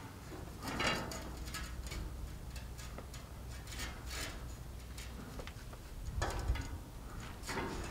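Chalk scraping over the rusty steel side of a loader bucket as a line is marked along a straightedge: several short, faint rubbing strokes.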